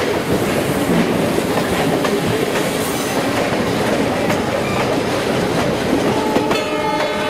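Passenger train running, heard from an open coach doorway: steady rumble with wheel clatter over the rails. Near the end a steady tone of several pitches joins in.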